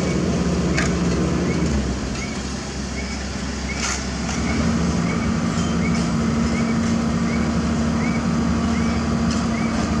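Niigata asphalt paver finisher's diesel engine running steadily, with a sharp clank about a second in and another near the middle. Through the second half a short high chirp repeats about every half second over the engine.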